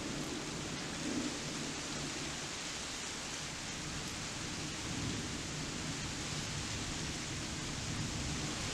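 Steady rain during a night thunderstorm, with a low rumble of distant thunder underneath.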